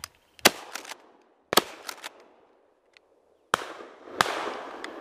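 Shotgun shots fired at birds overhead: several sharp reports, the loudest about half a second, a second and a half and four seconds in, with fainter shots in between, each trailing off in echo.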